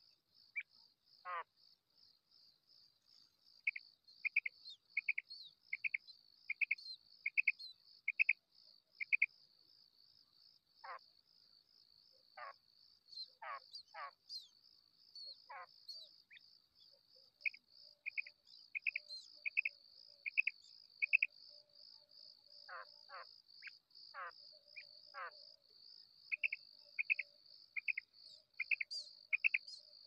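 Female common quail calling: runs of short high notes about one every three-quarters of a second, alternating with single sharp notes that sweep steeply downward, over a steady high-pitched trill. The call is used to lure quail for hunting.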